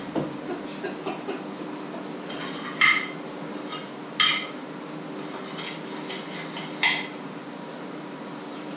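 Cutlery clinking and scraping on a plate during eating, with small clicks near the start and three sharp ringing clinks about three, four and seven seconds in. A steady low hum runs underneath.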